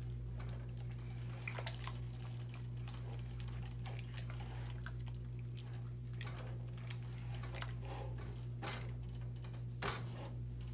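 A spoon stirring a thick pot of beans, corn and rice: soft wet squelches and scattered light taps against the pot, a slightly louder knock near the end, over a steady low hum.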